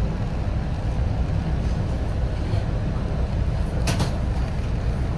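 Steady low rumble inside a commuter train car rolling into a station, with one short, sharp hiss about four seconds in.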